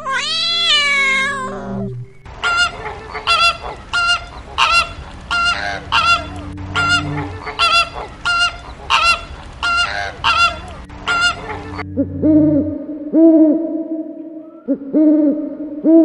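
A domestic cat meows once at the start. Then comes a long run of about fifteen goose-like honks, a little under two a second. From about twelve seconds in, these give way to repeated owl hoots.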